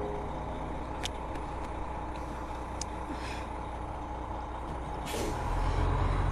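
Coach bus idling with a steady low engine rumble and a couple of light clicks. About five seconds in comes a short sharp hiss of air from the brakes, and then the engine grows louder as the bus pulls away.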